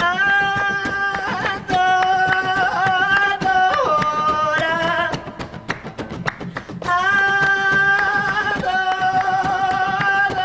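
A woman singing long, held wordless notes in two phrases with a short break between, over acoustic guitar.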